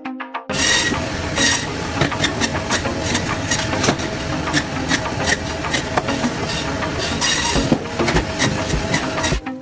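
Fast, irregular mechanical clattering: many sharp clicks and knocks over a steady rushing noise, starting about half a second in and stopping just before the end.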